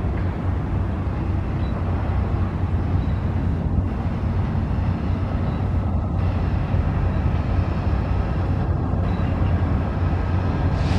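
A diesel locomotive's engine running steadily, a constant low rumble with no change in level.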